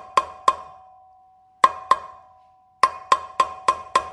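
Hammer tapping a new wheel bearing into a KTM 350 EXC's rear hub, striking the bearing's outer edge: sharp metallic taps, each with a short ring. Two taps, a pause, two more, then an even run of about three to four taps a second.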